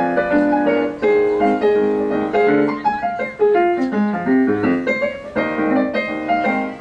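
Ragtime played on a digital piano: a brisk, continuous run of melody notes over a bass accompaniment.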